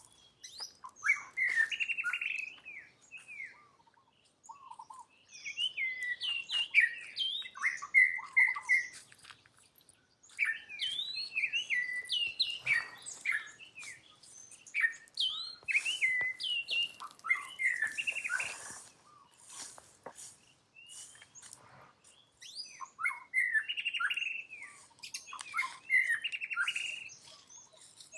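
Bouts of rapid, high-pitched chirping and squeaky calls, each bout a few seconds long with short pauses between.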